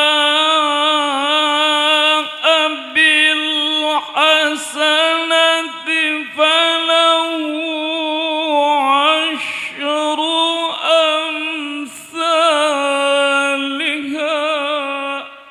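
A man reciting the Quran in the high, melodic tilawah style into a handheld microphone: one long held line with wavering ornaments, broken by short dips, that stops sharply near the end.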